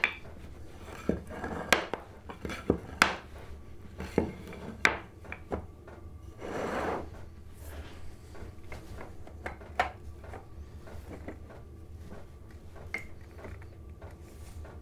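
Cut hardwood end-grain blocks being set down and shuffled into rows on a wooden workbench: irregular sharp wooden clacks and knocks, most in the first five seconds, with a scraping slide of about a second midway.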